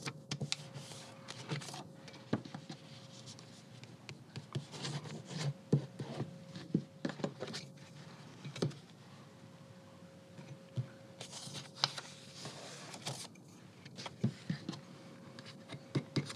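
Pages of a book being folded and creased by hand: soft paper handling with scattered light taps, and a longer rubbing stroke about two-thirds of the way through.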